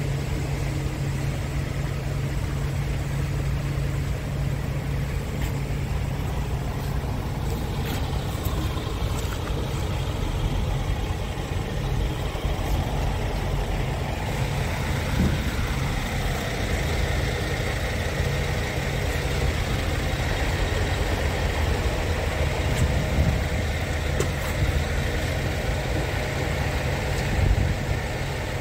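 Scania R450 Euro 6 tractor unit's 13-litre six-cylinder diesel idling steadily.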